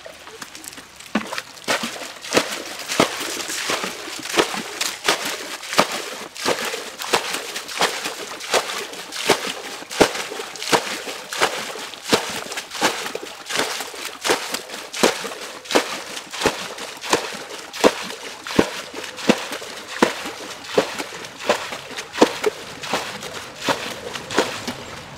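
Muddy water being bailed with a plastic bucket: repeated scoops and splashes of water flung out, in a quick regular rhythm of about one and a half a second.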